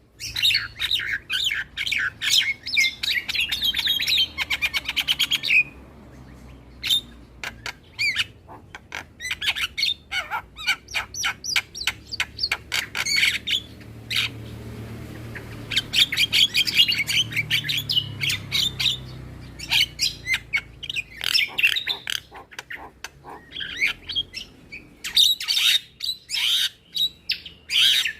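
Javan myna (jalak kebo) singing: runs of rapid, chattering notes, with a fast even rattle about four seconds in and a brief break about halfway through.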